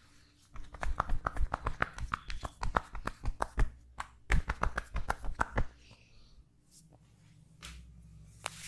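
Rapid percussive massage tapping: hands striking the body in quick runs of sharp slaps, with a short break partway through, stopping about six seconds in.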